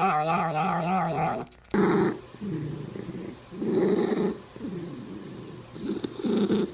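A cat's long, wavering, drawn-out meow ends about a second and a half in. After a brief gap comes a cat's low rhythmic rumbling, rising and falling in pulses about once a second, like a loud purr.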